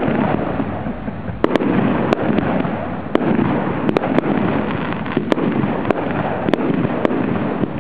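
Aerial fireworks display: about a dozen sharp bangs of bursting shells at irregular intervals, over a continuous dense noise.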